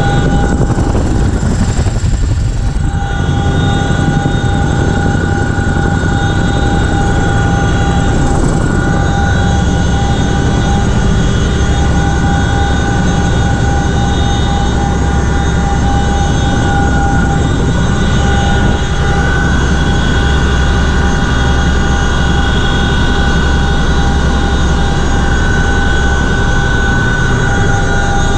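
CH-47F Chinook's tandem rotors and twin turboshaft engines running steadily, heard from inside the cabin: a loud heavy low drone with steady whining tones laid over it.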